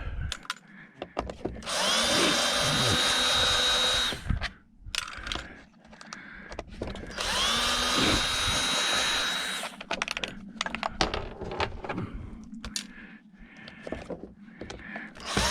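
Power drill running in two bursts of about two and a half seconds each, its motor whine rising quickly and then holding steady as it backs screws out of a dishwasher. Between the bursts come light clicks and knocks, and a third burst starts near the end.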